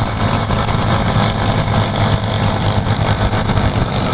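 Honda 125 cc single-cylinder motorcycle engine running steadily at cruising speed, with wind rushing over it. It is picked up by a microphone inside a closed helmet.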